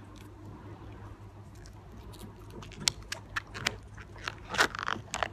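Fingernails picking and scratching at the edge of a peelable wrap coating on a car roof, trying to lift it. Faint at first, then a run of sharp clicks and crackles from about halfway, loudest near the end.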